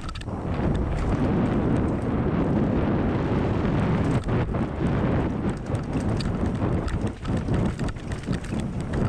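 Wind buffeting the camera microphone as a mountain bike rides down a dirt trail, with tyre rumble over the ground. Sharp knocks and rattles from bumps and roots come more often in the second half.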